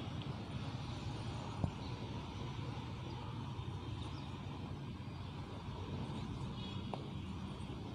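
Steady low background hum, with faint short squeaks of a marker writing on a whiteboard and a single sharp click about one and a half seconds in.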